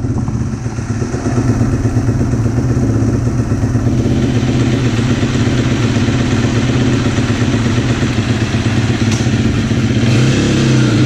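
Motocross dirt bike engine idling steadily, with a slight change in pitch near the end.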